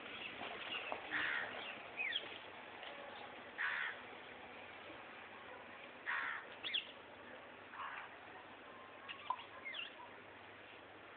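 Birds calling: short harsh caws every couple of seconds, with thin high chirps in between.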